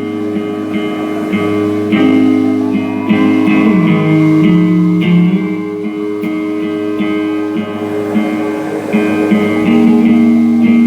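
Live band music: an instrumental passage of guitars over bass guitar, with no singing, and a note sliding down about four seconds in.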